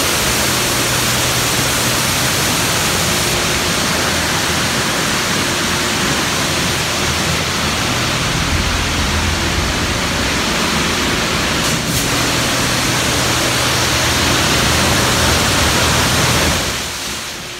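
Water spraying inside a D&S Super 5000 automatic car wash: a loud, steady hiss of spray with a low machine hum underneath, falling off sharply near the end.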